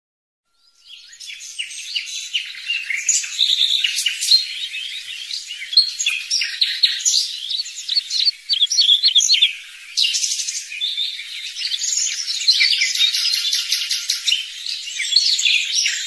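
Several songbirds singing at once: a dense chorus of quick high chirps and trills, fading in during the first second.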